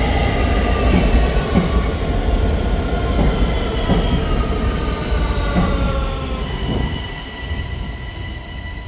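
Electric passenger train running past a station platform: a heavy rumble of wheels on track, with whining tones that slowly fall in pitch as it moves away. It fades out near the end.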